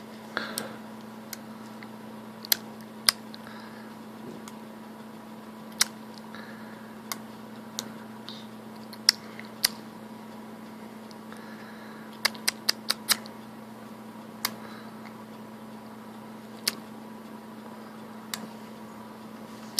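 A seven-month-old baby making sharp tongue clicks at irregular intervals, with a quick run of five clicks about twelve seconds in, over a steady low hum.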